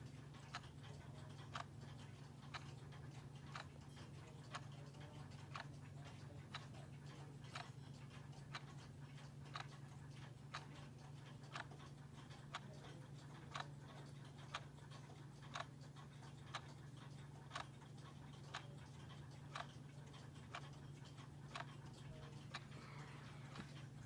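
Battery-operated quartz clock movement ticking faintly, one tick a second, over a low steady hum.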